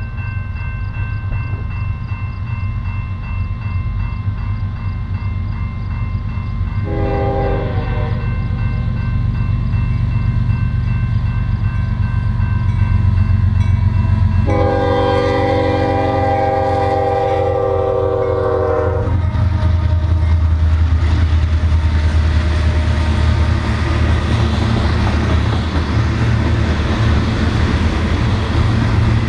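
Diesel freight train approaching and passing a grade crossing while the crossing bell rings steadily. The locomotive's air horn sounds a short blast about seven seconds in and a long blast from about fifteen seconds. The engine rumble then gives way to the loud rolling of covered hopper cars over the crossing for the last ten seconds.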